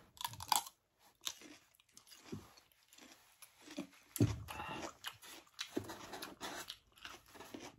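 Close-up chewing of a raw green vegetable: crisp crunching bites just after the start, then irregular wet chewing with another sharp crunch about four seconds in.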